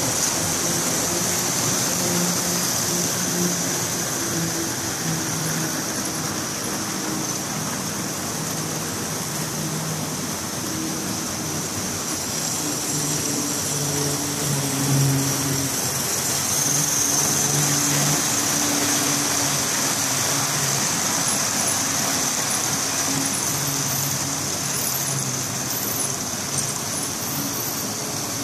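Model trains running on a model railway layout, a TGV Sud-Est trainset and an NS Class 1200 locomotive among them: small electric motors hum and wheels roll over the track with a steady hiss. The hum shifts up and down in pitch, over a constant high whine.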